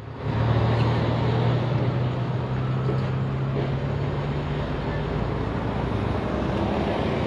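Loaded dump truck's diesel engine running with road noise as it drives past: a steady low drone over a hiss, easing slightly after about five seconds.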